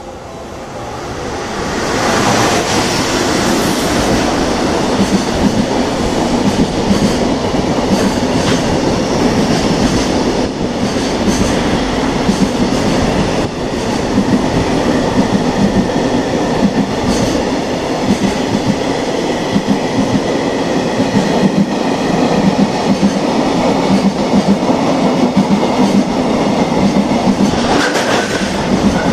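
JR Freight EF210 electric locomotive running through close by, growing louder over the first couple of seconds, then a long train of container wagons rolling past with a steady clickety-clack of wheels over rail joints.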